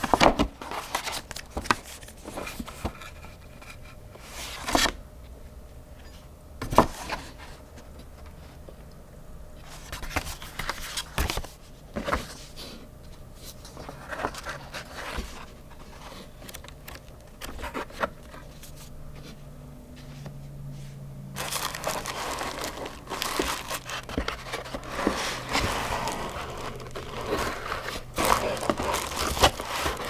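Paper rustling, with sharp flicks as a folded instruction leaflet and a small manual are handled and their pages turned. About two-thirds of the way in this gives way to steady, denser scraping and crinkling as a molded-pulp packing insert is worked out of a cardboard box.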